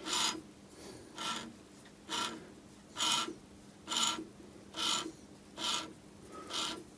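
Short rasping rubs, about one a second and eight in all, as a Myford ML7 lathe spindle and faceplate are turned by hand against a dial indicator during a runout check.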